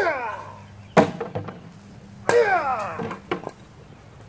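Three sharp chopping strikes, at the start, about a second in and a little past two seconds. The first and third are each followed by a short sound falling in pitch.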